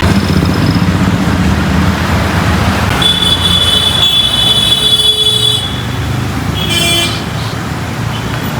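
Motor vehicle engines running in road traffic, a steady low rumble. A high steady tone sounds for about two and a half seconds midway, and a brief high tone sounds near the end.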